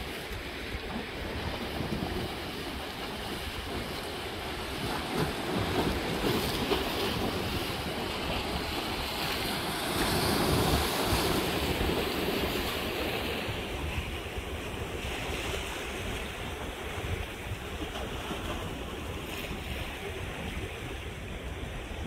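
Sea waves washing against a rock breakwater, a steady surf hiss that swells to a louder surge about halfway through as a wave breaks into foam among the boulders, then eases off.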